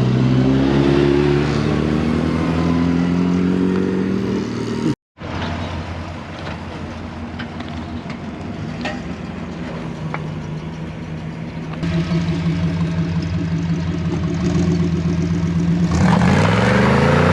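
Car engines running as cars move off: an engine note for the first few seconds, a brief cut to silence, then a steady engine running. Near the end an engine's pitch rises and falls as a car drives by.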